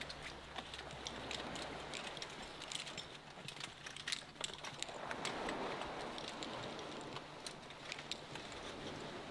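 Raindrops ticking irregularly, many small sharp taps close by, as a rain shower begins. A hiss of rain swells about five seconds in.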